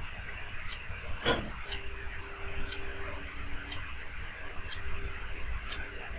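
A metal spoon stirs puffed rice in a steel pot, with one sharp clink of spoon on pot about a second in. Behind it a clock ticks faintly once a second.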